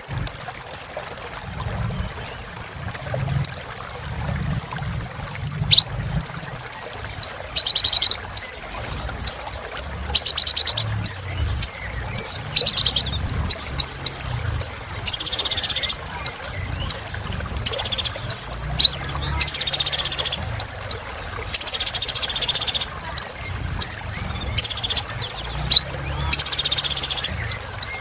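Kolibri ninja sunbird singing continuously: rapid high, thin chirps and quick pitch-swept notes, broken by several buzzy trills lasting about a second each.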